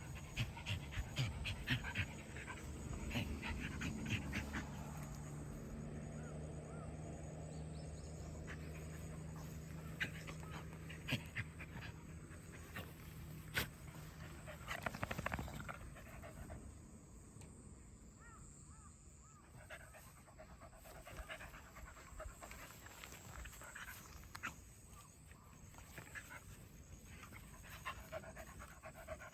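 A beagle panting, with scattered light clicks and ticks. A low steady hum runs through the first half and stops about halfway.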